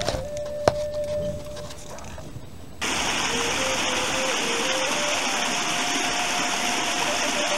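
Slow flute melody playing, with one sharp click under a second in. A little under three seconds in, a loud, steady hiss cuts in abruptly beneath the melody, which goes on stepping between notes.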